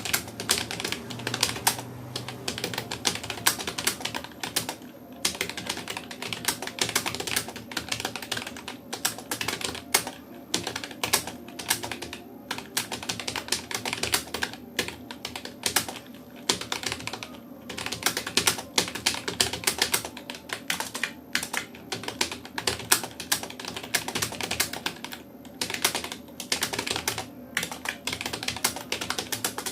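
Rapoo computer keyboard being touch-typed in fast, continuous keystrokes, at about 57 words per minute, with brief pauses every few seconds.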